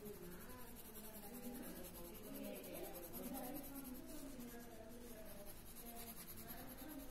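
Coloured pencil scratching on paper as a drawing is shaded in, with short strokes.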